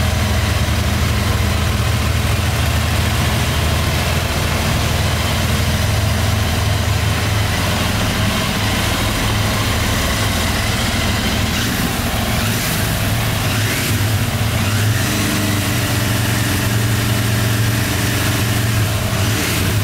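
BMW F800R's 798 cc parallel-twin engine idling steadily.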